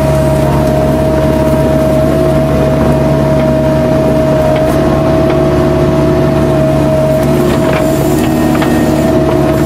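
Kubota U-45 mini excavator's diesel engine running steadily under work, with a steady high whine held over the engine note.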